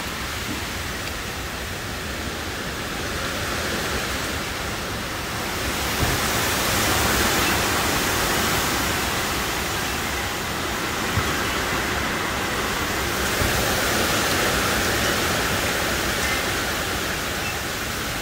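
Summer storm: strong gusting wind rushing through the tree leaves with heavy rain, a steady rushing noise that swells about six seconds in, with a few faint knocks.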